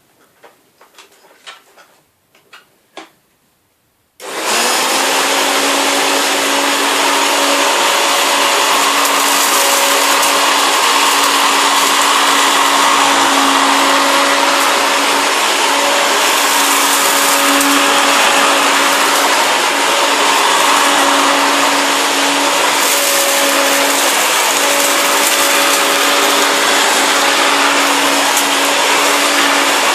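A few light clicks, then about four seconds in the Hoover Turbopower Junior U1102 upright vacuum cleaner is switched on. Its motor comes up to speed at once and runs steadily, a loud even whirr with a steady hum.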